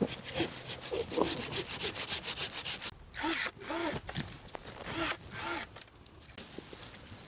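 Hand saw cutting wood: a fast run of short back-and-forth strokes, then slower, longer strokes with a rising-and-falling pitch for a few seconds, then fainter.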